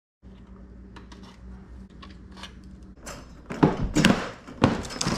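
Plastic front bumper cover being worked loose from its clips and fasteners: faint scattered clicks at first, then four loud scraping knocks in the last two seconds.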